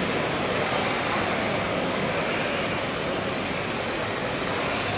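Steady vehicle-like running noise as a radio-controlled model mobile crane and heavy-haul model trucks drive past in a busy exhibition hall, with the hall's steady din mixed in.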